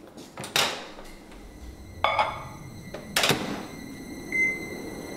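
Microwave oven being handled: three knocks and clunks, about a second apart, as its door and a mug are worked. About four seconds in comes a short electronic keypad beep.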